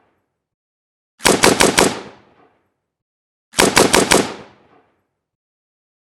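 AK-47 assault rifle firing two short bursts of about four rounds each, the second a couple of seconds after the first, each burst trailing off in an echo.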